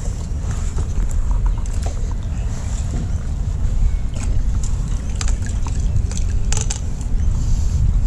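Steady low wind rumble on the microphone. About halfway through come a few short sharp knocks and light splashes as a landing net is worked in the water.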